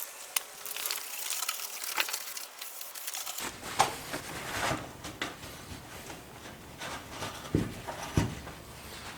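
Paper towel wiping and scrubbing grime out of a pickup's wheel well: irregular rustling and scratching with scattered light knocks and clicks.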